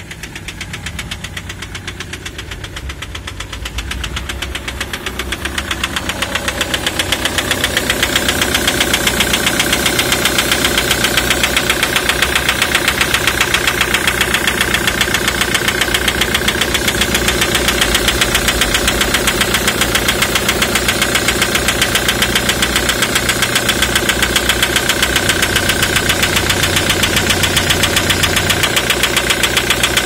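Ford Mondeo Mk3 2.0 TDCi (FMBA) diesel idling with a steady, rapid knock from its Delphi common-rail injectors. The knock grows louder over the first several seconds, then holds even. Injector knock of this kind comes from a faulty multiplier (return) valve in the injectors.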